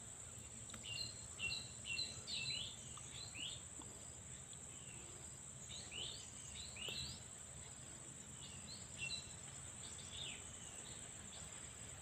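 Cinereous tits (gelatik batu) giving short, quick chirping calls in several brief bouts, over a steady high drone of insects.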